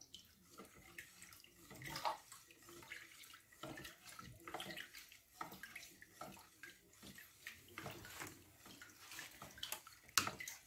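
Faint dripping and trickling of lemon juice from a hand-held lemon squeezer into a plastic bowl of lemon water, with small splashes as the mix is stirred with a wooden spoon. There is one sharp click near the end.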